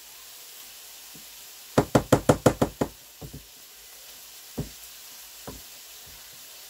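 A utensil knocking against a stainless steel mixing bowl while a mixture is stirred in it. A quick run of about eight knocks, some seven a second, comes nearly two seconds in, followed by a few scattered single knocks.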